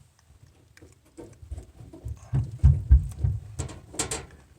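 Handling sounds as a dryer drum-support roller and its plastic retainer piece are being fitted: a run of low bumps a little past the middle, then a few sharp clicks.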